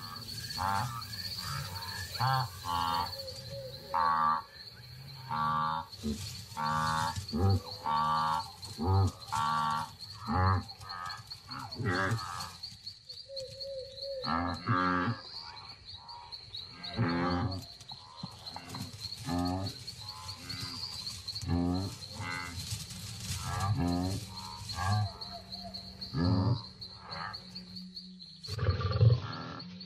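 A wildebeest herd calling at night: short nasal grunts, one after another about every second, over a steady high trill of crickets.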